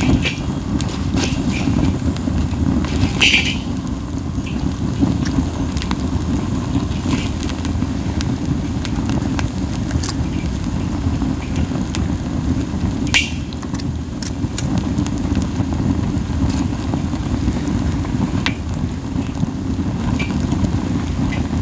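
Campfire of pine cones burning hard, with a steady low rumble of strong flame and wind on the fire. A few sharp crackling pops stand out over it, the clearest a little after the middle.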